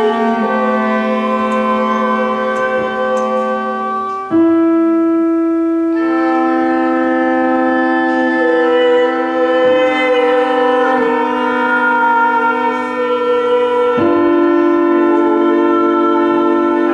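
Live experimental chamber music: a bowed cello and an electronic keyboard hold long, overlapping drone tones, and the chord shifts suddenly several times.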